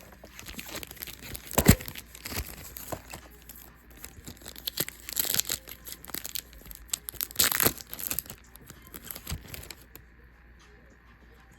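Foil Yu-Gi-Oh! booster pack wrappers being torn open and crinkled, with clicks and rustles of cards being handled; two longer rustling bursts come about five and seven and a half seconds in.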